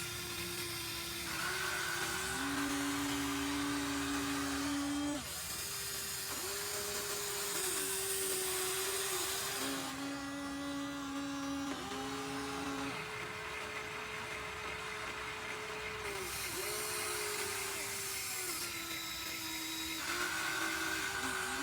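Small electric motors and gearboxes of a Huina 1593 RC excavator whining as it works, the pitch stepping up and down every few seconds as different motors start, change speed and stop.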